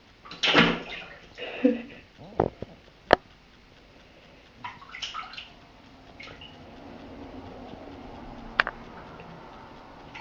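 Kitten pawing and paddling in shallow bathwater in a bathtub: a few short splashes in the first two seconds and again around five seconds in, with a few sharp taps between.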